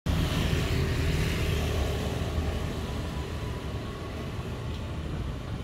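Steady rumble of a passing vehicle, slowly fading.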